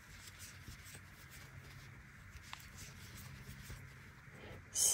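Faint rustling and scratching of yarn being drawn through stitches with a crochet hook as double crochets are worked, with a few soft ticks.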